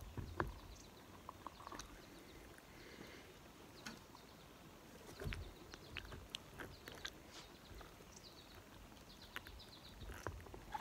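Quiet outdoor background with faint bird chirps, over soft clicks and a couple of low bumps from gloved hands working inside a plucked chicken carcass to pull out the lungs.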